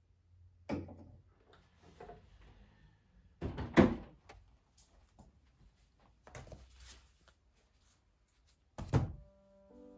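Household handling sounds: a portable sewing machine set down on a desk and a bamboo laundry-hamper lid being handled, giving a few separate knocks and thuds with fabric rustling between. The loudest thud comes about four seconds in, another just before the end.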